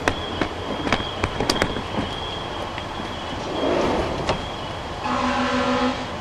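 A vehicle horn sounds a long blast starting about a second before the end, over steady outdoor background noise, with a few sharp clicks in the first two seconds.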